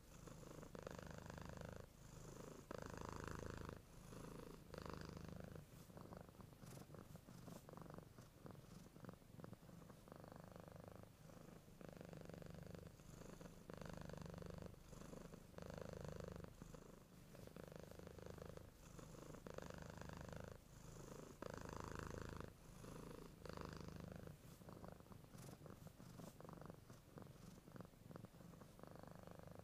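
A sleeping cat purring faintly, swelling with each breath about once every two seconds.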